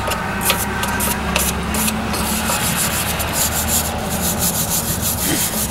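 Hand wire brush scrubbing rust off a car's rear wheel hub face in repeated scratchy strokes, cleaning the mounting surface before a new brake rotor goes on.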